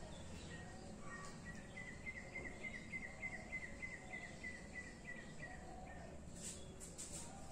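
Faint background noise with a bird calling: a quick run of short, high chirps, about five a second, for a few seconds in the middle, with scattered single chirps before it and a few faint clicks near the end.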